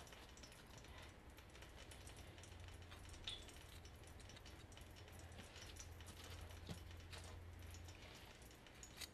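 Near silence with a few faint clicks and taps of metal kitchen tongs setting fried milkweed pods down on a plate, over a faint low hum.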